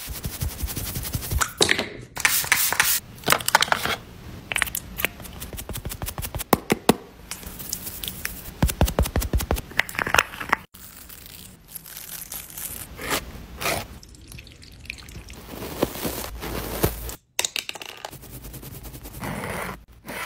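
Close-miked makeup sounds: quick runs of clicks and taps, with brushes and sponges scraping and crackling against powder and skin, and a powder compact being handled. The sounds change abruptly a couple of times.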